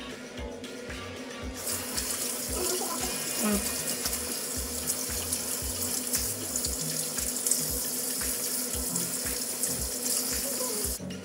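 Bathroom sink tap running in a steady stream, turned on about two seconds in and shut off near the end, over background music with a steady beat.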